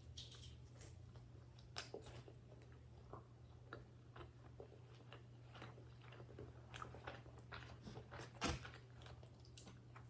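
Chewing pepperoni pizza close to the microphone: irregular soft crunches and mouth clicks, with a louder crunch about eight and a half seconds in, over a steady low hum.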